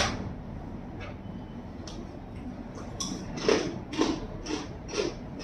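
A crunchy fried snack being chewed: short, soft, irregular crunches, sparse at first and then about two a second from about three seconds in.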